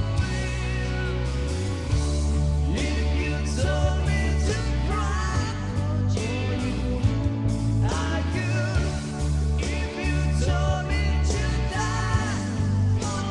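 Rock ballad sung by a voice with wavering vibrato over a band backing of bass, drums and guitar.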